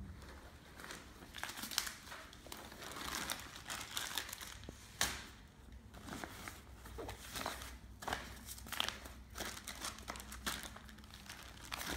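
Clear plastic bags crinkling in irregular bursts as they are handled and packed into a backpack, with the backpack's fabric rustling.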